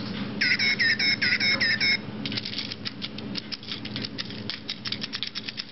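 Micro Pets electronic toy animal sounding off: a quick run of about eight short electronic chirps, then about two seconds in a fast, steady clicking rattle.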